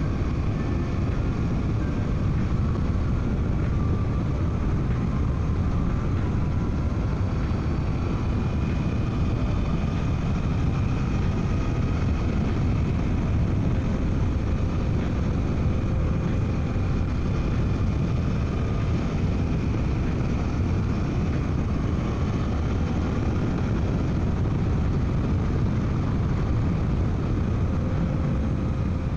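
Wind and road rush heard from inside a motorcycle helmet, with the Suzuki V-Strom 800DE's parallel-twin engine running underneath, its pitch drifting up and down a little.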